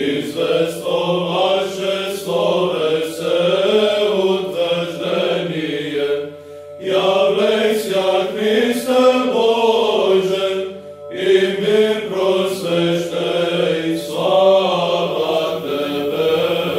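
Men's voices chanting an Orthodox Christian hymn together, in three long, slow phrases with brief pauses for breath between them.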